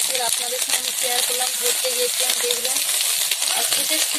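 Small puti fish frying in hot mustard oil in a metal wok: a steady sizzle with frequent clicks and scrapes of a metal spatula stirring and turning them.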